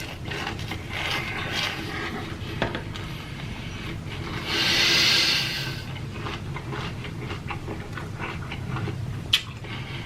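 Close-miked chewing and mouth sounds of someone eating fast food, with irregular small clicks and smacks. About halfway through there is a louder hiss lasting a second or two.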